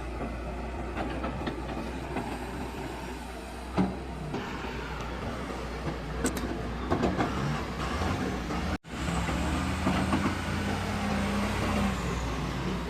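Heavy diesel engines of an excavator and a tipper truck working together run steadily, with several sharp metallic knocks. About nine seconds in the sound cuts out for an instant, then the engine drone resumes.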